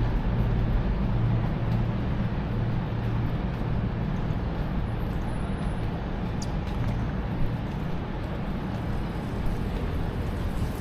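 Steady low drone of a running engine, with an even rushing noise over it.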